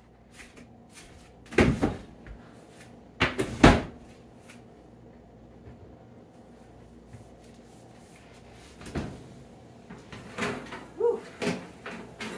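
Kitchen handling knocks: two loud knocks in the first few seconds, then a quieter stretch, then a run of clunks and rattles near the end as the oven door is pulled open.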